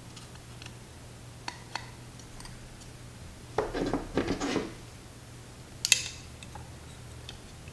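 Small metal hand tools, pliers and a hex screwdriver, clicking and clattering while stack screws are tightened on a carbon-fibre drone frame. There are a few light clicks, then a rattling clatter about three and a half seconds in, and a sharp click near the end.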